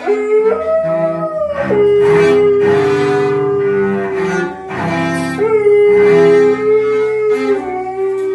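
A cello played with a bow in long sustained notes, with a dog howling along in two long held howls that slide up into their pitch.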